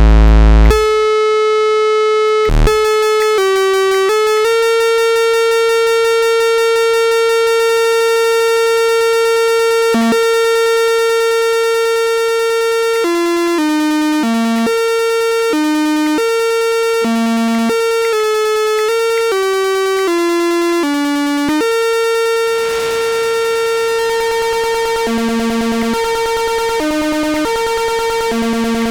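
Behringer Crave monophonic analog synthesizer, one oscillator, sounding a long held bright note, then stepping through a line of short notes at changing pitches. A loud low sound cuts off about a second in, and a hiss of noise joins the tone in the last third.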